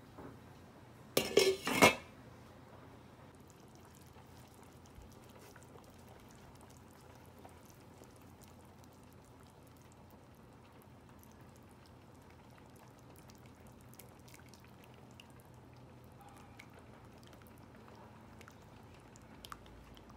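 A short loud clatter of several metal hits against a stainless steel soup pot about a second in, followed by faint scattered clinks and scrapes of a ladle and wooden spoon as miso paste is dissolved into the soup.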